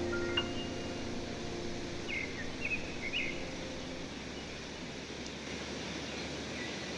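Riverside outdoor ambience: a steady noise of wind and flowing water, with a few short bird chirps about two to three seconds in.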